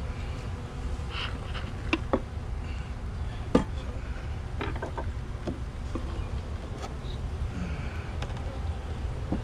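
Carniolan honey bees buzzing steadily around an open hive during a nuc installation. Several sharp knocks of wooden hive parts being handled sound over the buzz, the loudest about three and a half seconds in.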